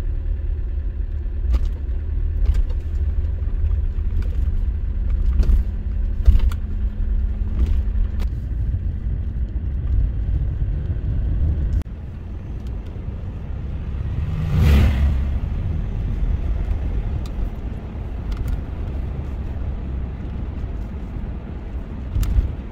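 Road noise heard inside a moving car: a steady low rumble with scattered small clicks and rattles. The rumble drops a little about halfway through. A few seconds later a brief whoosh rises and falls as an oncoming vehicle passes.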